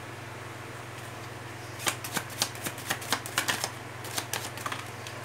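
Tarot deck being shuffled in the hands: a quick run of sharp card clicks and flicks, starting about two seconds in and lasting about three seconds.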